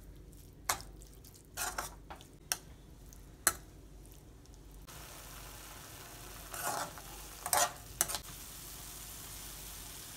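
Metal spoon scraping and knocking against a metal kadai as washed flattened rice (aval) is stirred through jaggery syrup, a few separate strokes. A steady sizzle sets in about halfway, with more scrapes over it.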